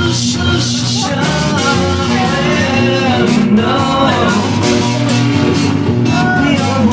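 Loud rock music with electric guitars, drums and a sung vocal line.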